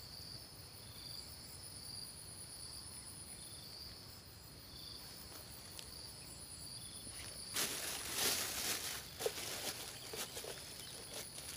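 Steady high-pitched insect chorus with a short chirp repeating about every half second. From about two-thirds of the way in, irregular rustling and handling noise close by covers it.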